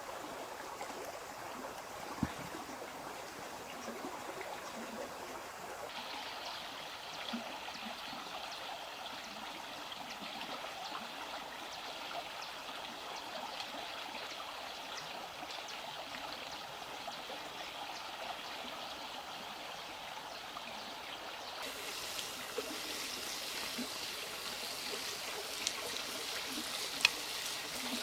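Steady rush of running water that grows brighter about six seconds in and again near the end, with a couple of faint sharp clicks.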